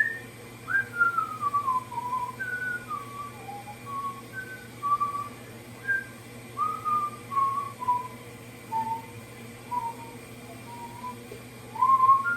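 A person whistling an idle, wandering tune: short single notes a few a second, some sliding down in pitch.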